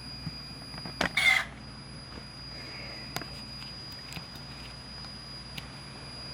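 Pioneer CT-W840R cassette deck running with a steady high-pitched squeal, which the owner suspects comes from a drive belt. About a second in there is a sharp click followed at once by a short, loud clattering burst from the mechanism, and a few lighter clicks come later.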